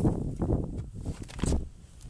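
Irregular rustling and low thumps of clothing and hands rubbing close to the camera's microphone, with footsteps.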